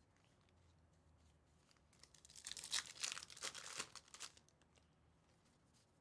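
A foil-wrapped pack of 2024 Topps Big League baseball cards being torn open by hand. The wrapper tears and crinkles for about two seconds, starting about two seconds in.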